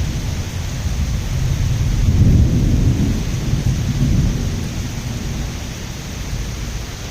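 Rolling thunder rumbling after a lightning flash, swelling about two seconds in and again near four seconds before fading, over steady rain.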